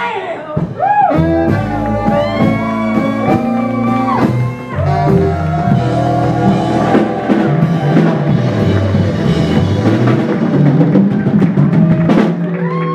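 Live blues band playing an instrumental passage: a saxophone lead line bending and wavering over electric guitar, a stepping bass line and a drum kit.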